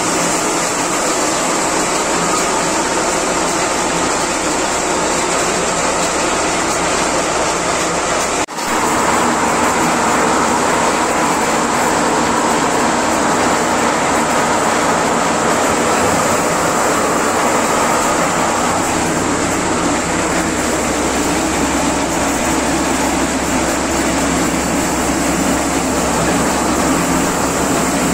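Tractor-powered maize thresher running steadily at full work, shelling corn cobs: a loud, continuous mechanical din. It breaks off for a moment about a third of the way in.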